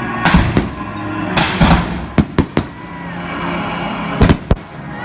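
Fireworks going off in a rapid, irregular string of sharp bangs, about ten in all, some in quick pairs and triplets, the loudest near the start and about four seconds in. Music plays steadily underneath.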